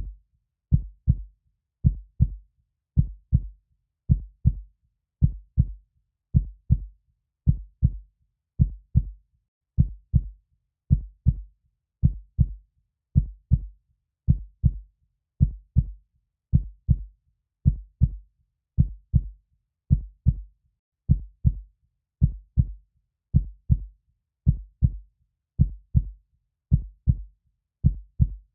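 Heartbeat sound in a steady lub-dub rhythm: two low thumps close together, repeating about once a second, with silence between the beats.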